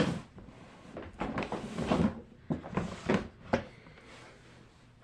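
Plastic pop tube fidget toys being handled: a run of short clacks and knocks as they are picked up and set down, thickest in the middle seconds, then soft rustling.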